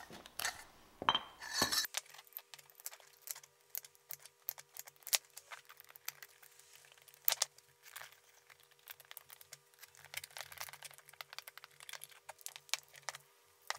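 Light metallic clinks and taps of thin metal rods against copper pipes and the workbench, as the rods are slid through the pipes' holes to assemble a small grill grate.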